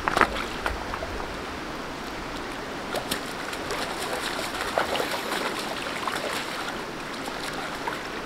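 Shallow river running steadily over stones, with a hooked rainbow trout splashing in a landing net every now and then.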